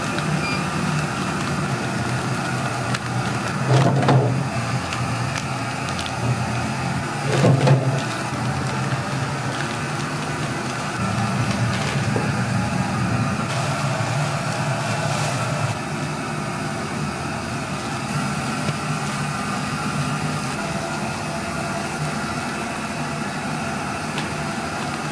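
Automatic flow-wrap packaging machine running with a steady mechanical hum as it folds and seals rice cakes into plastic film. Two brief louder noises come about four and seven and a half seconds in.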